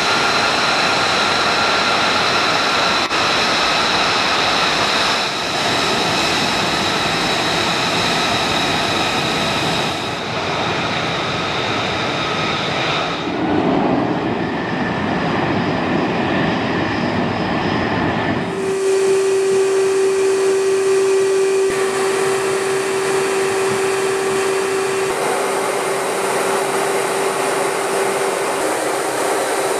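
F-35 fighter's single Pratt & Whitney F135 turbofan running with a steady high whine as the jet taxis. About 13 seconds in a deeper roar comes in as it takes off. About 19 seconds in the sound cuts sharply to a steady in-flight drone carrying a constant hum tone.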